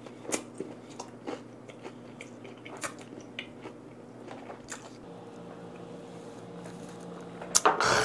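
Close mouth sounds of a person chewing vinegar-cured mackerel (shime saba) with raw onion: scattered wet, crunchy clicks. Near the end comes a louder burst as the next piece goes into the mouth.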